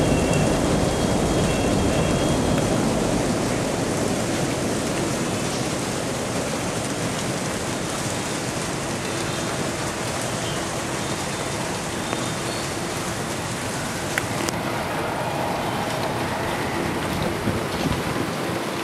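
Steady heavy rain falling, with a low rumble that eases off over the first few seconds.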